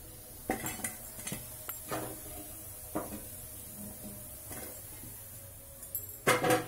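Perforated steel skimmer clinking against a frying kadhai and a steel plate while fried thekua are lifted out. The clinks come one at a time every second or so, with a louder clatter of several knocks near the end.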